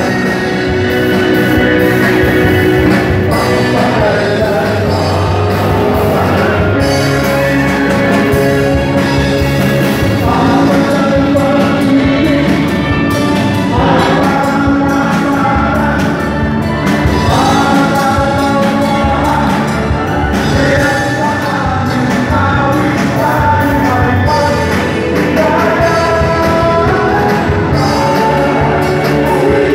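Live band with drums, electric guitar and keyboard playing a song, with several men singing into microphones.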